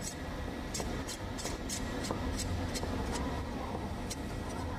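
Irregular light metallic clicks and scraping as the threaded retaining ring is turned by hand onto the repaired outlet thread of a cast-iron meat grinder body, over a steady low hum.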